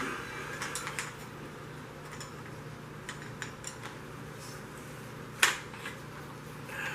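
Light clicks and handling of metal carbine parts during takedown, with one sharp click about five and a half seconds in, over a faint steady hum.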